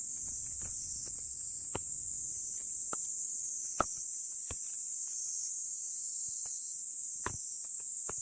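Steady high-pitched insect chorus, with several short, sharp knocks of split firewood being handled and stacked.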